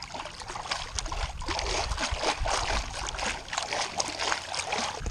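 Bare feet kicking and splashing in lake water to push a pool-noodle raft along: a continuous run of irregular splashes.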